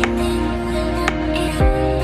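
Background music: sustained soft synth chords, with a steady electronic kick-drum beat coming in about one and a half seconds in.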